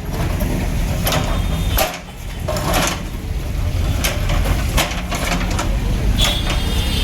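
Heavy demolition machinery with a low engine rumble, under repeated short knocks and cracks of material being broken up.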